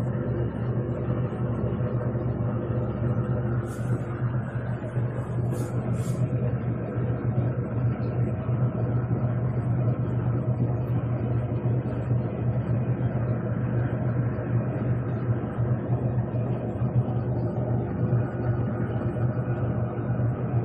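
Tangarus Mallorca portable washing machine running, its motor giving a steady hum. Three short faint ticks come about four and six seconds in.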